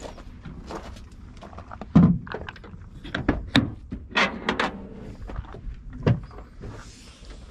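Knocks, clicks and thumps of a car's seats and interior being handled by hand, the loudest thump about two seconds in.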